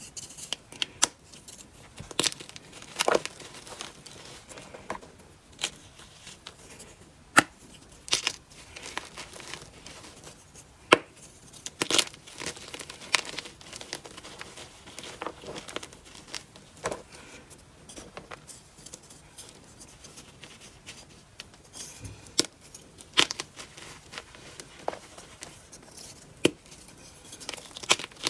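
Crumbly blocks of dyed chalk being snapped and crushed by hand into loose powder: sharp, irregular crunches over a soft, steady crumbling and gritty rustle.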